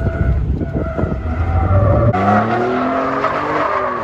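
Ford F-150 pickup drifting on pavement. For the first half the engine is heard from inside the cab as a low, rough rumble. About halfway in the sound switches to the truck heard from outside: tires squealing in a slowly falling screech over the engine revving up and down.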